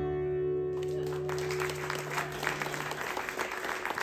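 A live band's final chord ringing out and dying away over about three seconds, while an audience starts to clap about a second in and keeps applauding.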